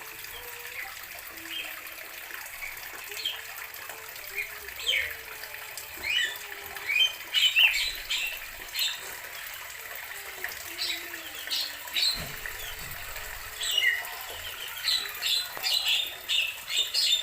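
Birds chirping in many short, sharp calls, thicker and louder in the second half, over a faint steady hiss.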